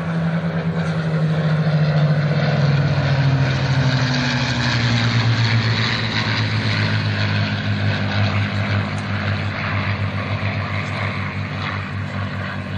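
A Supermarine Spitfire and a P-51 Mustang flying past together, their Rolls-Royce Merlin V12 piston engines droning. The drone is loudest about two seconds in. Its pitch falls as the pair pass over, then holds lower with a pulsing beat as they draw away.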